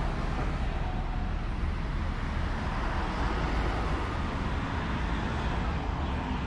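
Steady road traffic noise at a roadside bus stop, a continuous low rumble of vehicle engines running with no distinct passing or braking events.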